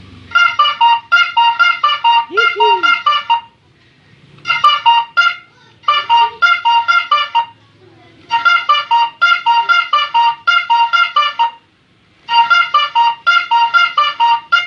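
Electronic telolet bus-horn module playing a melody through a horn-shaped loudspeaker: quick staccato electronic notes in five phrases separated by short pauses.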